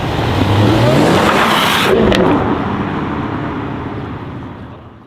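Jaguar F-Type's 5.0-litre supercharged V8 accelerating hard, its engine note climbing for about two seconds. A single sharp exhaust crack comes about two seconds in, then the sound fades as the car pulls away.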